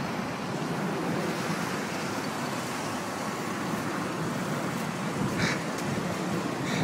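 Steady road traffic noise: cars driving past, a continuous rush of engine and tyre sound.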